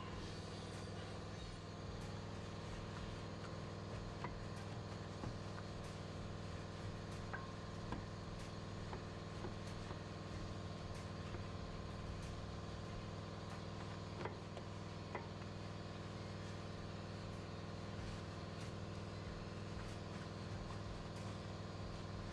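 Steady low machine hum with a few faint clicks and knocks on top.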